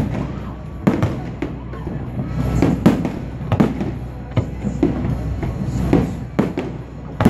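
Aerial firework shells bursting overhead in an irregular series of sharp bangs, roughly one every half second to second and a half, over a steady low rumble.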